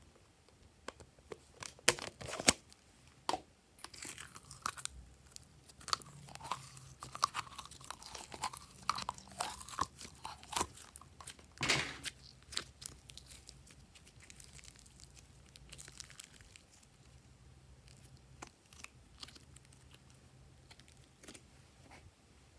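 Thick purple slime squelching, popping and clicking as it is squeezed out of a plastic bottle and worked by hand. The pops are loud and close together for about the first twelve seconds, then softer and sparser.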